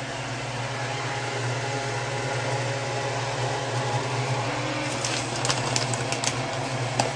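Steady low mechanical hum, like a fan or appliance motor, under a light hiss. About five to six and a half seconds in come a few soft crinkles and clicks of a plastic shredded-cheese bag being handled.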